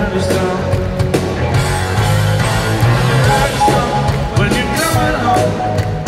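Live rock band playing at full volume in a large arena, heard from far back in the crowd.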